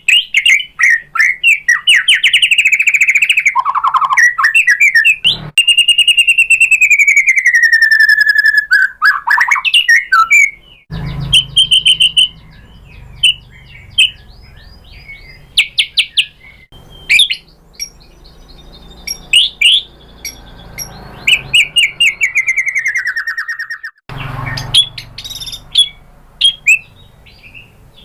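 White-rumped shama (murai batu) singing loudly: long sliding whistled phrases mixed with rapid trills and short chattering notes. The background hiss changes abruptly about eleven seconds in and again near the end, as if separate recordings were joined.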